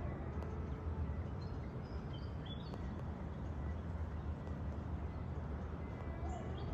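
Outdoor ambience: a steady low rumble with a few faint, short bird chirps about two seconds in and again near the end.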